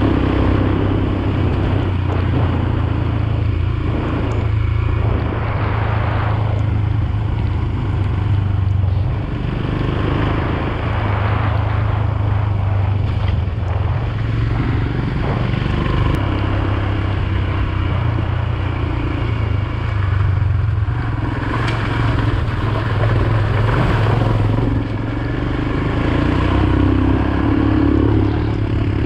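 Royal Enfield Himalayan's single-cylinder engine running steadily under way, with rushes of wind and tyre noise from riding over the wet gravel road.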